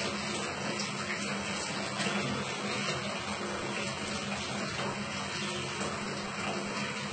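Tap water running steadily into a basin or onto the floor, with a low steady hum underneath.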